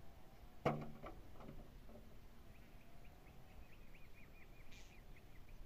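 A single sharp knock with a short ring, then a few lighter knocks. Later a small bird chirps in a quick, even run of short notes, about five a second.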